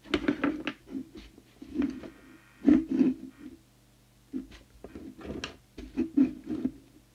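Irregular clicks, knocks and taps of hands handling things on a workbench, with a brief faint whine about two seconds in, over a steady low hum.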